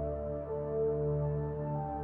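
Slow ambient background music: held, overlapping synthesizer-like tones over a steady low drone, with no beat.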